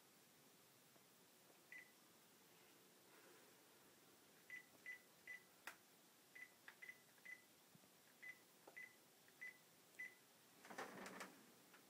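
Mobile phone keypad beeping as keys are pressed: about a dozen short beeps at one pitch, in an uneven run, with a couple of sharp clicks among them. A brief rustle near the end.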